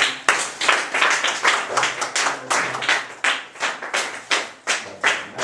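A group of people clapping in a steady, even rhythm, about four claps a second.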